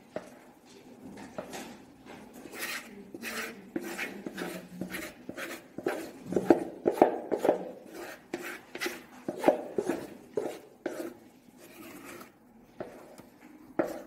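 Cake batter being scraped out of a plastic mixing bowl into a plastic microwave rice maker with fingers and a wooden spoon: a run of short scraping strokes and knocks of plastic and wood on plastic, loudest in the middle.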